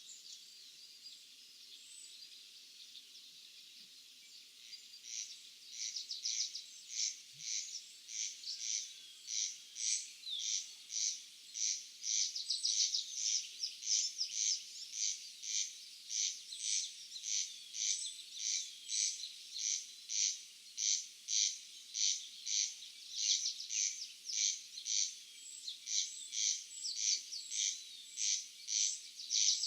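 A field animal's rasping chirp repeated steadily, about two pulses a second, starting a few seconds in and growing louder. Behind it, birds chirp faintly.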